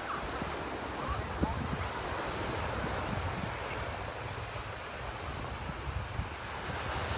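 Sea waves washing onto a sandy beach, with wind rumbling on the microphone. Faint voices of other people on the beach are heard now and then, mostly in the first second or so.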